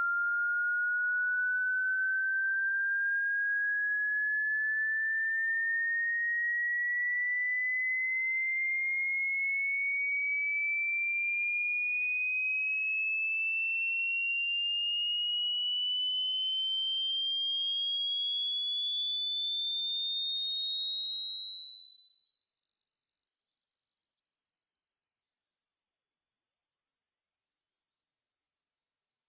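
Pure sine-wave test tone rising slowly and steadily in pitch, a single whistle-like note climbing higher and higher: a hearing-test frequency sweep.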